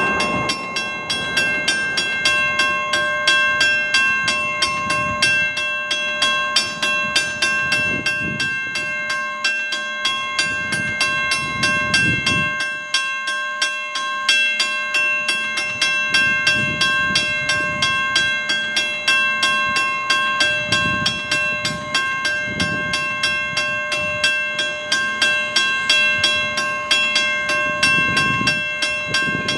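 Steam locomotive approaching slowly in the distance, its exhaust chuffs coming as low puffs every second or two. A steady high-pitched pulsing chirr sits over it.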